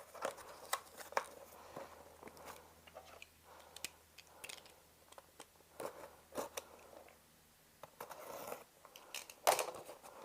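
A parcel being opened by hand: scattered crinkles, scrapes and small clicks of packaging being handled, with a louder rustle near the end.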